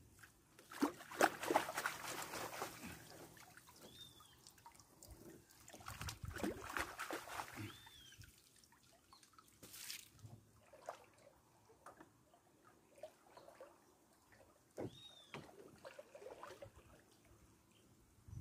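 Water sloshing and trickling as a mesh hand sieve is swept through shallow river water and lifted out, water draining through the mesh, in two bouts. A bird gives a short arched whistle about three times.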